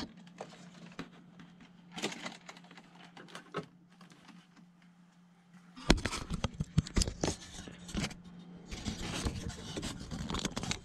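Hands handling small metal parts and tools on a workbench: scattered clicks and light rattles at first, then a busy run of clatter and rubbing from about halfway in as the foam model and its fittings are handled. A faint steady low hum runs underneath.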